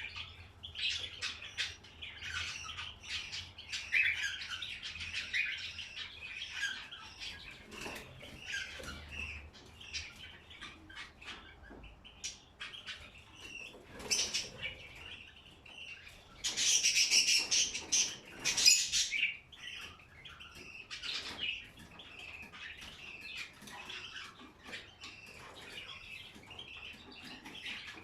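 Small caged pet birds chirping and calling continuously, with a louder, harsher burst of calls about two-thirds of the way through.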